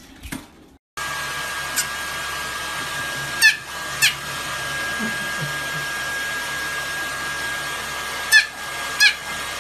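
Hair dryer running steadily with a thin high whine, starting about a second in. It is blowing on a small fluffy white dog, which gives two pairs of short, sharp yaps, one pair near the middle and one near the end.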